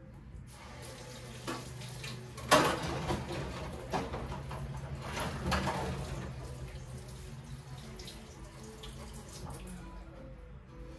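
Kitchen faucet running water into a sink: the flow comes on strongly about two and a half seconds in and eases off after a few seconds.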